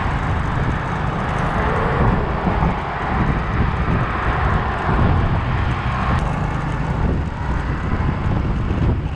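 Riding noise from a moving motorbike: wind rumbling and buffeting on the microphone, mixed with engine and tyre noise. The sound stays at a steady level.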